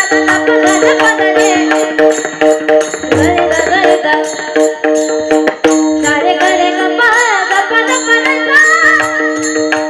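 Devotional kirtan music: small brass hand cymbals (taal) struck in a quick, steady rhythm, with a woman's voice singing a wavering melody into a microphone over a sustained held drone.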